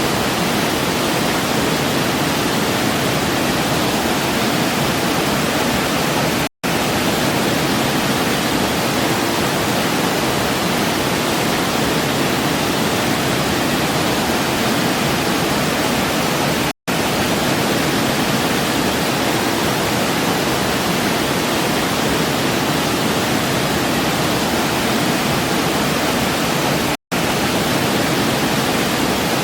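Waterfall rushing steadily, an even wash of falling water. The sound cuts out to silence for a split second three times, about ten seconds apart.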